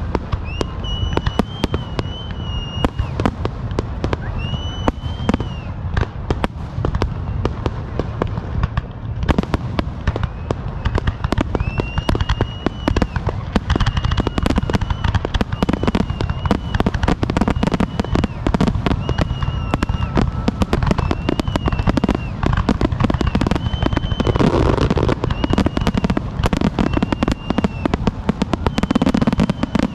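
Fireworks going off in a dense, unbroken barrage of rapid bangs and crackles, with short high whistles from whistling fireworks every second or two.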